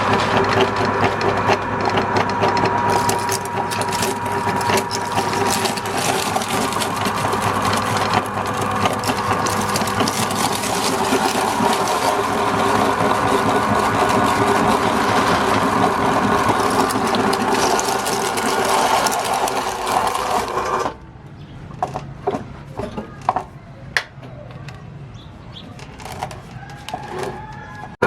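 Electric meat grinder motor running steadily as it grinds snacks. It cuts off abruptly about three-quarters of the way through, leaving a quieter stretch of scattered clicks and knocks.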